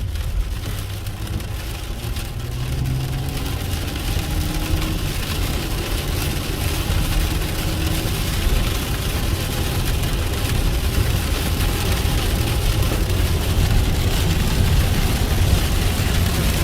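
Moving car's engine and road rumble heard from inside the cabin, with a hiss that grows steadily louder.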